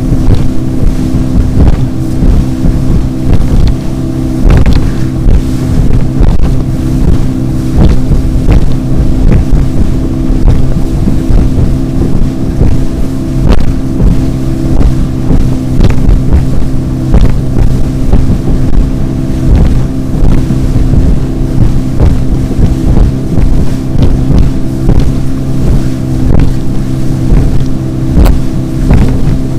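Motorboat engine running steadily at speed, its pitch holding even, with the hull knocking irregularly over the chop and wind noise on the microphone.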